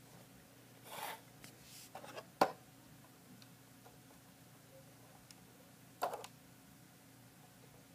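Hands handling a Lego brick model: a few scattered plastic clicks and rustles, the sharpest about two and a half seconds in and another about six seconds in, over a faint steady hum.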